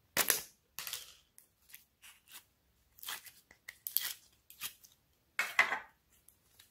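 Thin clear plastic slime tub being handled: its lid is peeled off and the tub squeezed as the slime is pulled out, giving a series of short, sharp noises. The loudest comes just after the start and another about five and a half seconds in.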